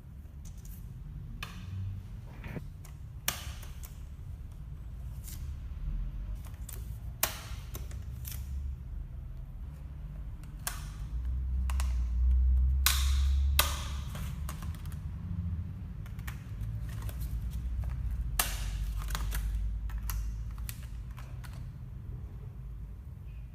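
Irregular clicks and light knocks of hands and tools handling an iMac during a RAM upgrade, over a low rumble of handling noise that swells twice.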